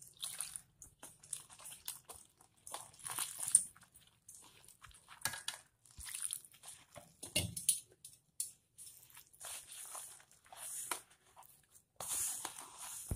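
Hands mixing wet rice-and-urad-dal flour into murukku dough in a stainless steel bowl as water is poured in: irregular gritty rubbing, squeezing and scraping against the bowl.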